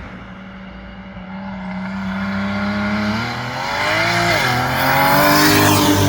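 BMW E92 335's N54 twin-turbo inline-six exhaust as the car rolls and accelerates. It runs steadily for about three seconds, then climbs in pitch, dips briefly about four seconds in and climbs again, getting louder towards the end.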